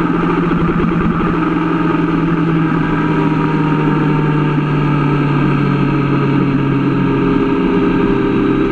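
Sport motorcycle engine running steadily at motorway cruising speed, with wind rushing past. The engine note drops slightly in pitch about halfway through.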